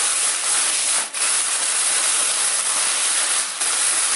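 Air-filled plastic bag of pork pieces, onion and spices being kneaded and squeezed by hand: loud, steady crinkling and rustling of the plastic, with two short breaks, about a second in and near the end.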